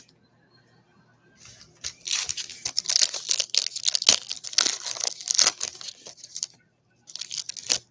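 A 2021 baseball trading card pack's wrapper being torn open and crinkled by hand. The crackling runs from about a second and a half in to past six seconds, with a shorter burst near the end.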